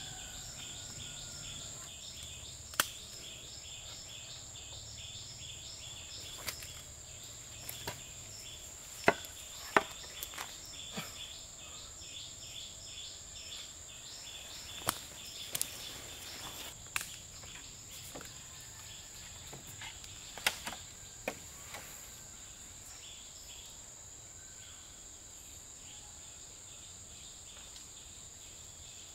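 Forest insects chirping: a steady high-pitched drone with a rapid, even pulsing. Over it come irregular sharp knocks, about fifteen, the loudest about three and ten seconds in, stopping a little past twenty seconds.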